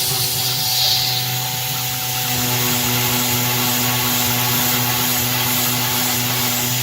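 CNC-converted PM-25 milling machine cutting with a 1/4-inch three-flute carbide end mill at high feed. The spindle and cut make a steady pitched drone over the hiss of mist coolant.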